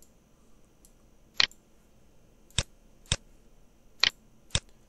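Five sharp, separate clicks of a computer mouse at an irregular pace, over a faint steady high whine.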